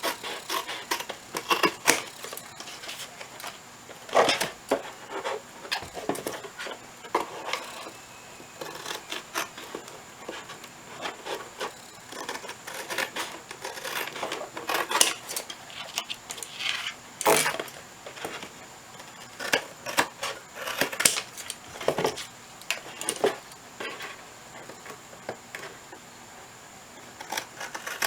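Scissors cutting the top flaps off a thin cardboard box: irregular crunching snips and clicks, with the rustle and scrape of the box being handled.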